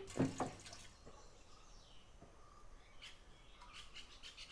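Two short knocks of kitchenware near the start, then faint bird chirps in the background.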